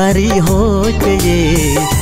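A Chakma pop song: a voice singing a wavering melody with vibrato over steady bass and a beat.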